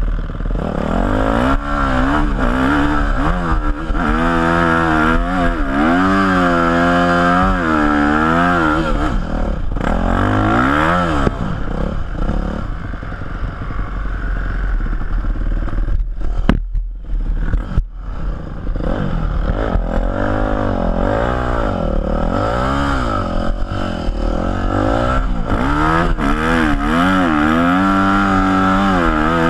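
Yamaha YZ250F four-stroke single-cylinder dirt bike engine heard from on the bike, its pitch rising and falling every second or two as the throttle is opened and shut while riding through sand. The sound briefly cuts back a little past halfway.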